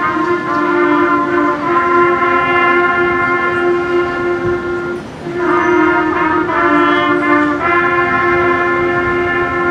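Junior high school concert band playing long held chords in the brass and woodwinds, the chord changing every second or two, with a short break about five seconds in.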